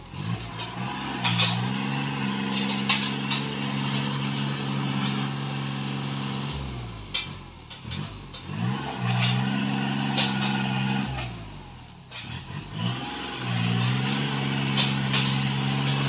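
Small farm tractor's engine revving hard and holding high three times, with dips between, as it strains to drag a loaded dump trailer out of deep mud. Scattered sharp knocks over the engine.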